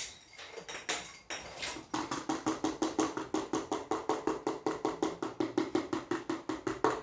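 A spoon stirring slime in a bowl, fast and rhythmic at about six strokes a second, starting about two seconds in after a few scattered knocks.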